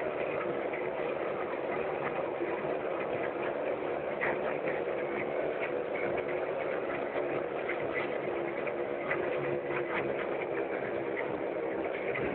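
Motorcycle engines running steadily together as the bikes ride laps inside a steel globe, a continuous overlapping engine sound with no sharp revs.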